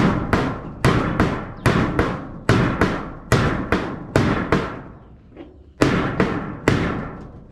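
Hammer blows on zinc roofing sheet, about two to three strikes a second, each ringing briefly, with a pause of a second or so past the middle.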